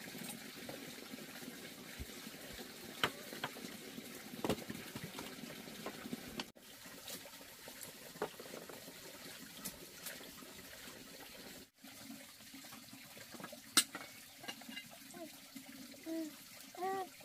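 Steady background hiss of running water, with scattered light clicks and taps of bowls and chopsticks. Near the end a baby makes a few short babbling sounds.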